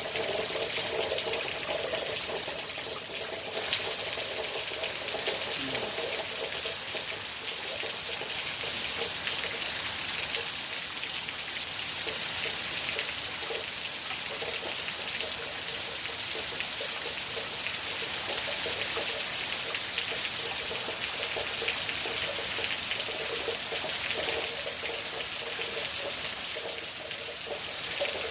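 Water running steadily, a continuous rushing with a gurgling undertone.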